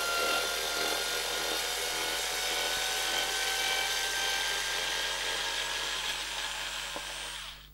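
Small electric screwdriver running steadily with a whine, backing the downstop screws out of an RC touring-car chassis. It stops near the end.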